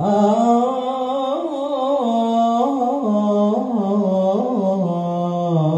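A man singing one long, unbroken devotional chant phrase into a handheld wireless microphone, amplified through a PA system. His voice winds up and down in ornamented turns and ends just before the end.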